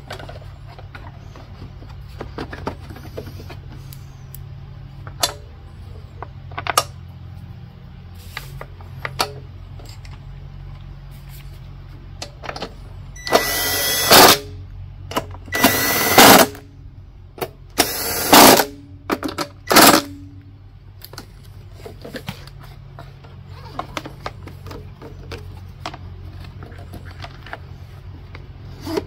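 Cordless drill-driver run in four short bursts about halfway through, driving home the screws on a small engine's shroud, with light clicks and knocks of plastic covers being fitted.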